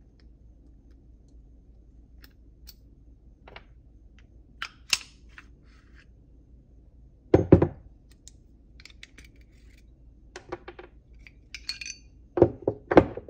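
Steel parts of an FN Browning Hi-Power pistol clicking and clinking as it is field-stripped, with a few louder knocks about halfway through and near the end as parts are set down on the wooden bench.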